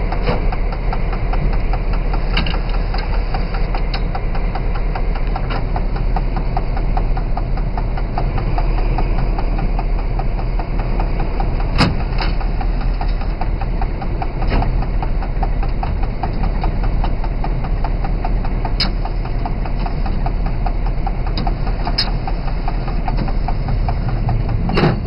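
SNCF BB 67000-series diesel locomotive engine running steadily with an even throb, heard from inside the cab as the locomotive moves slowly through the station. A few sharp clicks stand out above it.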